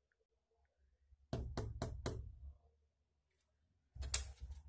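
Knocking on a wooden door: four quick, evenly spaced knocks, about four a second, then a second, louder burst of knocks near the end.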